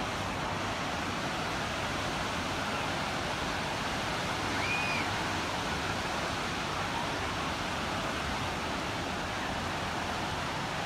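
Steady wash of surf breaking along a crowded beach, mixed with faint crowd murmur. A short, high arching chirp sounds once about five seconds in.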